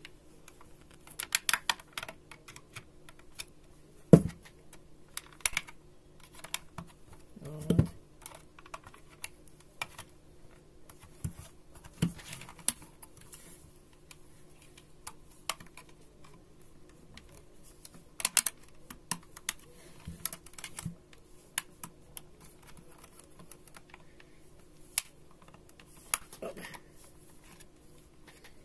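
Irregular clicks, taps and snaps of plastic as a knife blade pries open the clipped-together plastic housing of a Vitek VT-1201 steam iron, over a faint steady low hum.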